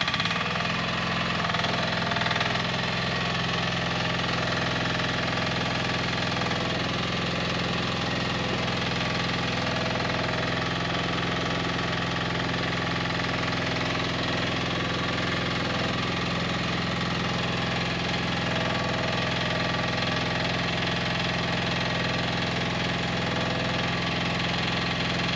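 Mini excavator's diesel engine idling steadily, its pitch and level unchanging.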